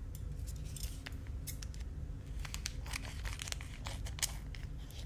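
Scissors cutting open a snack-bar wrapper: a string of small snips and crinkles of the wrapper.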